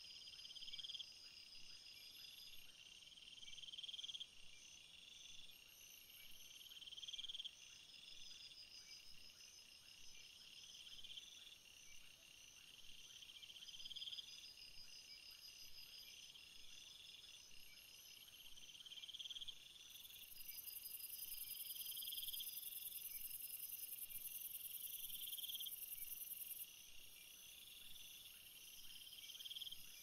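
Faint chorus of crickets and other insects in summer grass: several overlapping trills, each about a second long, repeating every two to three seconds. A louder high-pitched buzz joins about two-thirds of the way through and stops a few seconds before the end.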